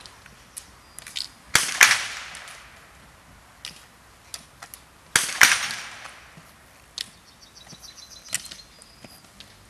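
Roller-ski pole tips striking asphalt. There are two loud sharp strikes about three and a half seconds apart, each trailing off over about a second, with lighter clicks in between.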